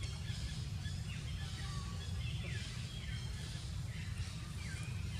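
Repeated short, high-pitched chirping calls, several sliding quickly downward in pitch, over a steady low rumble.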